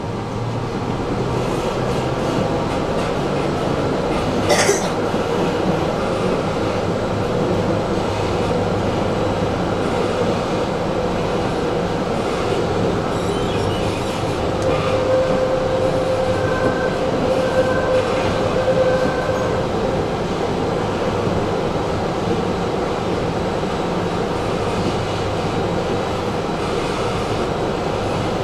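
Tram running along its track, heard from inside the car: a steady rumble of wheels on rails and running gear. A single sharp click comes about four and a half seconds in, and a steady tone is held for a few seconds past the middle.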